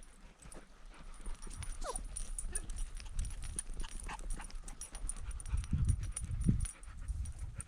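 Dog moving about: a run of irregular clicks and light thumps, with a short falling whine about two seconds in.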